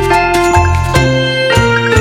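Background music: a light tune with bell-like, chiming notes over a steady bass.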